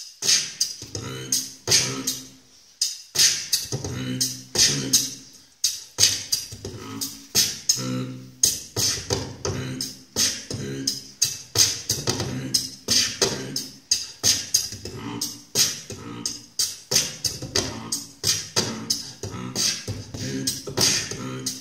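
Human beatboxing: a steady, fast rhythm of sharp vocal clicks and hissing hi-hat sounds, woven with hummed low tones. There are short breaks about two and a half and five and a half seconds in.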